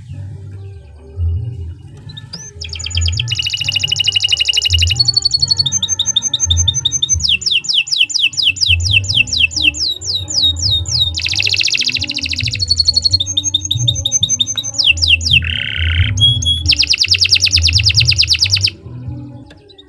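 Domestic canary singing a long song of fast rolling trills, each a quick run of the same repeated note, and passages of rapid rising glides, pausing briefly near the end.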